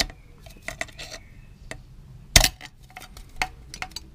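Scored aluminium drink-can bottom giving way as it is pressed out with a pocket-knife awl: scattered sharp metallic clicks and crinkles, the loudest about two and a half seconds in.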